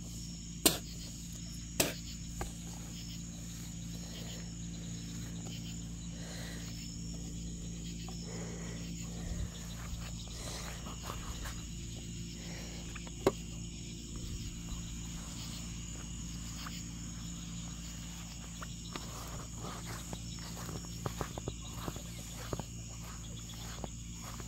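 Steady chorus of crickets, with a few sharp clicks near the start and a scatter of soft clicks and rustles near the end.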